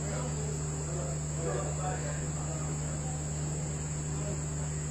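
Insects trilling steadily at a high pitch over a low steady hum, with faint distant voices now and then.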